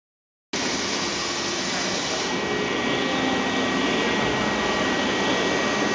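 STARVISION AC5 CNC machine running its automatic head change, the changer mechanism moving an attachment head with a steady mechanical whirr and a constant whine, starting about half a second in. A high hiss over it eases off after about two seconds.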